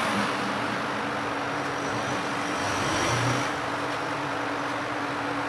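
Hot-air rework station blowing steadily over the phone board to soften the resin around the power-management chip at about 180–200 degrees, with a steady hum beneath the hiss. The hiss swells a little around the middle, with a faint high whistle.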